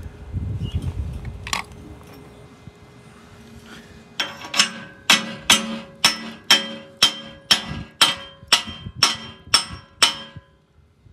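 A chipping hammer knocks slag off a freshly run 7014 stick-weld bead on steel plate: about thirteen sharp metallic strikes, roughly two a second, each leaving a short ring in the plate. The strikes start about four seconds in, after a stretch of quieter low noise, and stop suddenly near the end.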